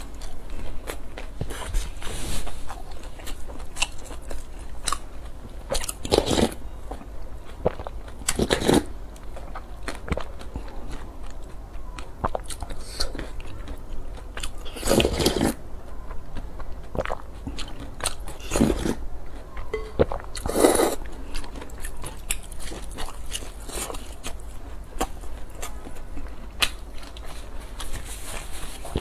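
Close-up eating sounds: biting and chewing a crispy fried pancake, wet mouth noises throughout. Several louder moments come a few seconds apart, one about halfway through as a spoonful of porridge is sipped.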